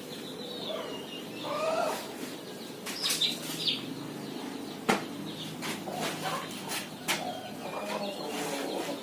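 Rustling and light knocks from clothing and items being handled, with birds chirping and chickens clucking in the background.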